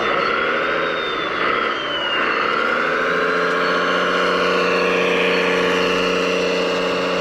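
A radio-controlled model machine's motor running loudly. Its pitch dips and recovers twice as it takes load, then holds steady.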